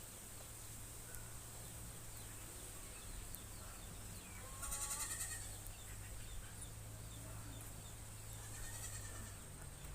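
A single wavering animal cry about five seconds in, over a steady low hum, with faint scattered chirps.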